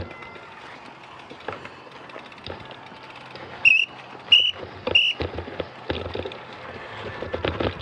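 Mountain bikes being walked up a dirt trail: footsteps and the clicking and rattling of the bikes, with three short high-pitched squeaks in quick succession a little past the middle.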